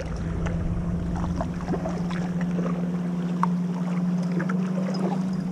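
Wind rumbling on the microphone while a kayak is paddled across open river water, over a steady low hum.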